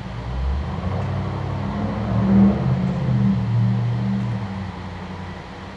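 A low, engine-like hum that swells about two seconds in and fades away near the end.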